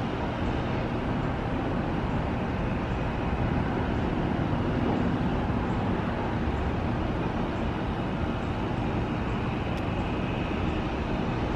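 Steady, even rumble of distant vehicle traffic, with no single event standing out.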